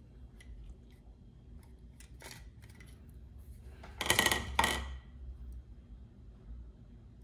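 Light clicks from handling the bared plastic and circuit-board internals of an Oral-B electric toothbrush, then about four seconds in its motor buzzes briefly twice as the power button is pressed.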